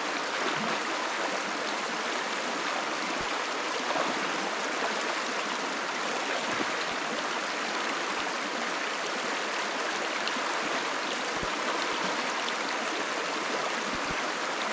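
Shallow river flowing over rocks: a steady, even rush of running water.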